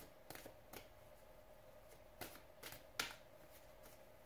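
Tarot cards being shuffled by hand: faint scattered clicks and snaps of the cards, with a sharper one about three seconds in.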